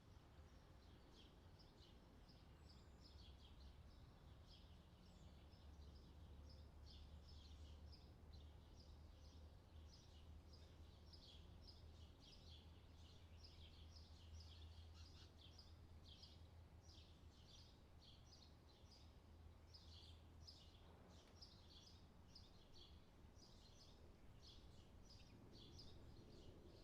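Faint chorus of small birds chirping, many short calls overlapping without a break, over a low steady background rumble.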